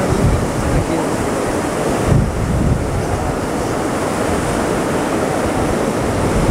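Rough sea surf breaking and washing through the shallows in a steady rush of noise, with wind buffeting the microphone.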